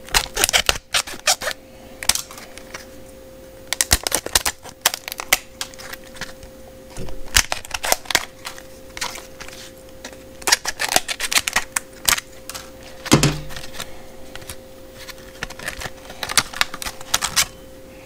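Scissors snipping through a stiff plastic clamshell blister pack, the plastic crackling and clicking in repeated bursts as it is cut and pried open. A dull thump about 13 seconds in, over a faint steady hum.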